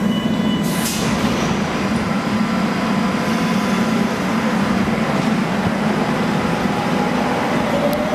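DT1 U-Bahn train pulling out of an underground platform: a short hiss of air about a second in, then the steady rumble of the train getting under way, with a motor whine rising near the end.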